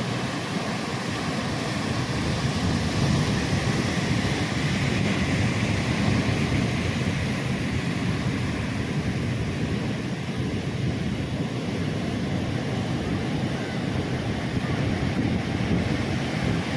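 Ocean surf breaking and washing on a beach, a steady rush of waves that swells a few seconds in.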